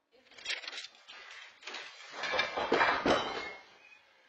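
A run of knocks and clinking clatter, loudest about two to three seconds in.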